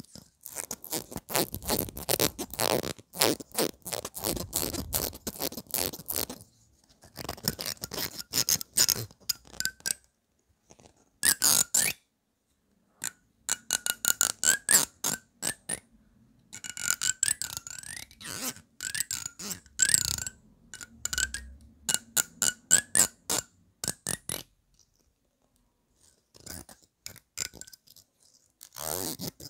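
Fingernails flicking and running along the teeth of a small comb: rapid trains of clicks in bursts of a few seconds, with brief pauses between them.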